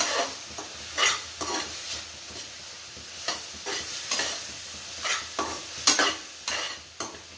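Spatula scraping and stirring tomato-onion masala in a metal kadhai, irregular strokes about twice a second, over a steady sizzle of the mix frying in oil as the just-added spices are worked in.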